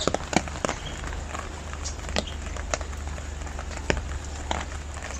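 Steady rain falling, with irregular sharp drops striking a surface over it and a low steady hum underneath.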